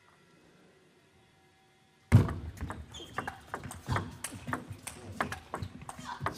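Table tennis rally starting suddenly about two seconds in: rapid sharp clicks of the celluloid ball off the bats and table, with squeaks of players' shoes on the court floor. Nearly silent before it.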